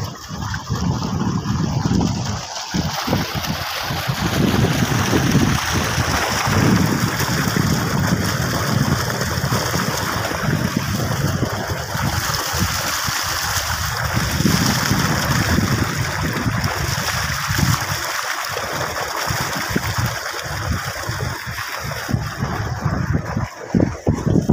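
Tubewell water gushing steadily from its outlet pipe into a muddy irrigation pool: a loud, continuous rush of water with an uneven low rumble beneath it.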